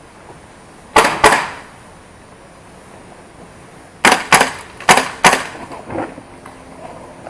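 Airsoft guns firing single shots with sharp snapping cracks: two about a second in, then four in quick succession about four seconds in, with a few fainter shots trailing after.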